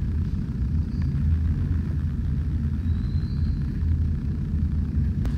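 A steady low rumble with no speech over it.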